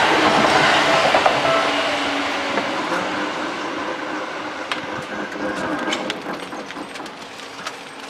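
Seibu 2000 series electric train's last car passing and running away, the rumble of its wheels on the rails fading steadily, with a few sharp clicks in the second half.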